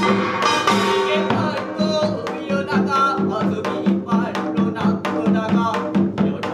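Korean binari blessing chant: a voice singing over samul nori percussion, drums and metal strokes keeping a steady beat of about four a second.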